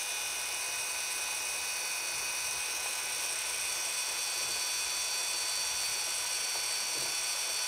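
DC 775 brushed motor running unloaded at speed, a steady high whine with hiss, powered from a variable bench power supply.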